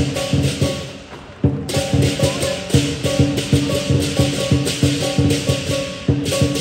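Lion dance percussion, a drum with crashing cymbals and a gong, playing a fast, driving rhythm. It thins out and drops in level about a second in, then comes back in full.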